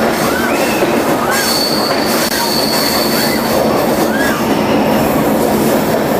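Passenger train on a winding hill line, heard from aboard: a loud, steady rumble of wheels on rails with wheel squeal. A thin, high, steady squeal starts about a second in and lasts about three seconds, and short squeals rising and falling in pitch come and go throughout.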